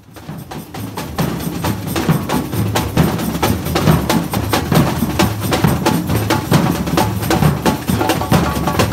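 Samba percussion band playing: bass drums under sharp wood-block-like strikes in a fast, steady rhythm, fading in over the first second or two.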